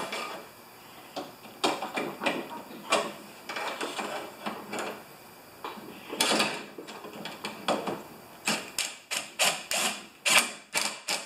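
Cordless drill-driver run in short stop-start bursts, driving in a snow thrower's carburetor mounting bolts, with clicks and clatter of metal parts. The bursts come closer together near the end.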